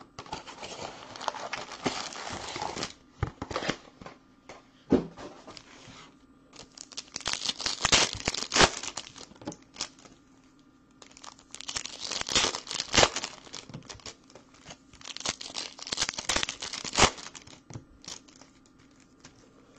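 2018 Bowman's Best trading card pack wrappers crinkling and tearing as packs are opened by hand. It comes in bursts every few seconds with quieter gaps.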